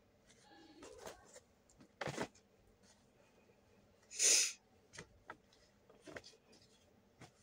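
Cloth and clothes being handled and folded, with scattered soft rustles and knocks, and one louder, short sharp burst of noise about four seconds in.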